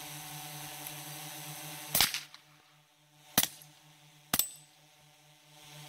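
Three pistol shots, about a second and a half and then a second apart, the first the loudest, with a brief high ring after the last one.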